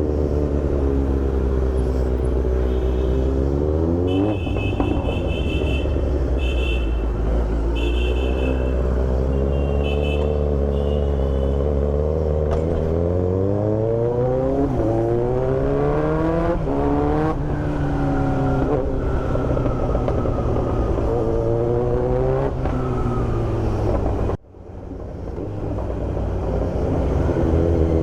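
Kawasaki Z900 motorcycle engine through an Austin Racing aftermarket exhaust, riding in traffic, its pitch rising and dropping again and again as it accelerates and eases off. A run of short high beeps, like a horn, sounds in the first third. The sound dips sharply for a moment near the end.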